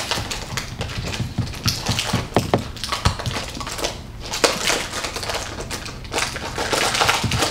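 Irregular rustling and crinkling with scattered sharp clicks and taps, like objects being handled.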